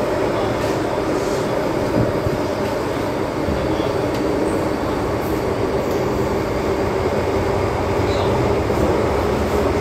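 Inside a moving MTR M-Train car: the steady running noise of wheels on rail and the train's traction and car equipment, a continuous rumble and hum with a few faint, brief high squeaks.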